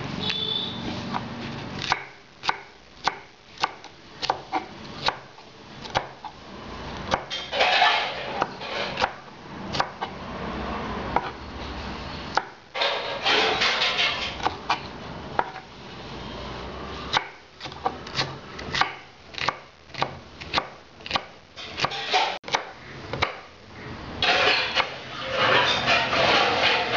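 Chef's knife slicing green capsicum on a wooden chopping board: runs of sharp knocks of the blade on the wood, about two a second, broken by a few stretches of a second or more of noisier scraping and crunching.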